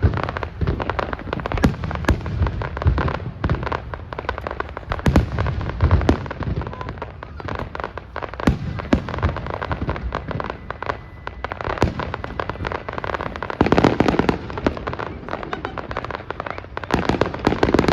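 Fireworks display: a continuous barrage of shell bursts and crackling reports, many in quick succession. Louder clusters come about two-thirds of the way through and near the end.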